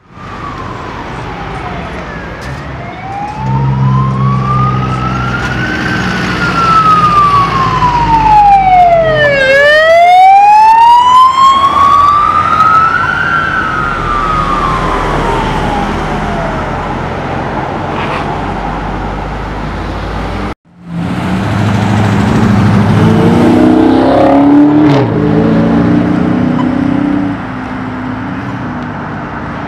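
Police car siren on a slow wail, its pitch rising and falling over several seconds at a time, loudest about ten seconds in as the car passes close. The sound cuts off suddenly about twenty seconds in, then road traffic and vehicle engines run loudly, with the siren faint.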